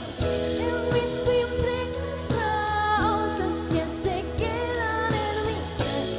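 Live band playing a song: a woman singing lead over a drum kit and electric bass, the drummer singing while she plays.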